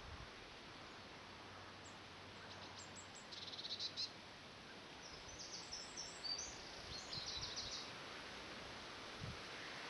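A small songbird singing in the trees: two runs of rapid, high chirps and trills, one about two seconds in and another from about five seconds in, over a faint steady outdoor hiss.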